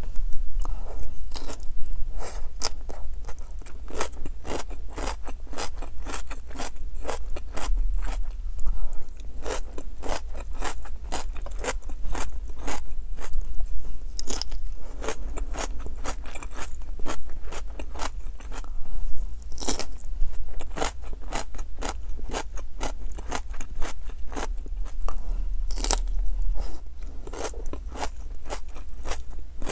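Close-up chewing of raw shredded cabbage salad: a steady run of crisp crunches, several a second, picked up by a clip-on microphone.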